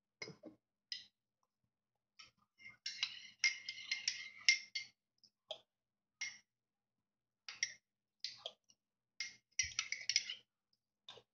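Metal spoon clinking against a ceramic mug as chocolate syrup is stirred into milk. The clinks come in two quick runs, one about three seconds in and one near the end, with single clinks in between.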